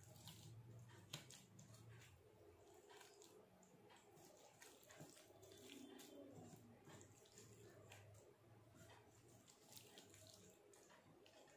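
Near silence, with faint wet squishing and small clicks as fingers mix rice and dal on a steel plate. One slightly sharper click comes about a second in.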